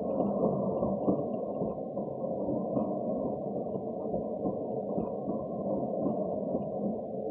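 Cat wheel spinning under a running cat, giving a steady muffled rumble.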